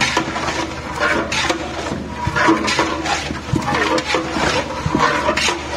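Long flat iron paddle stirring and turning marinated raw meat in a large aluminium cooking pot: repeated uneven wet squelching and scraping strokes.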